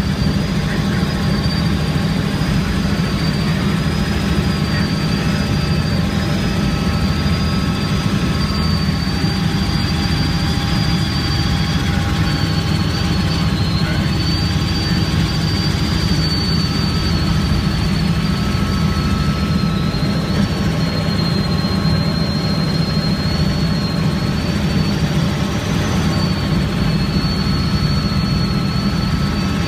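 Helicopter in flight, heard from the cabin: a steady, loud drone of rotor and engine with a thin high whine that wavers slightly in pitch.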